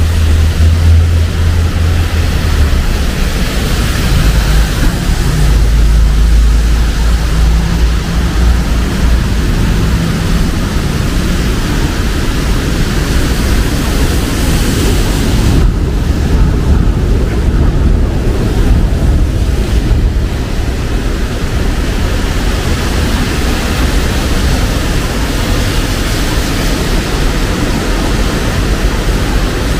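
Steady rain hissing with city street traffic under it: a low engine rumble that swells in the first couple of seconds and again about six seconds in.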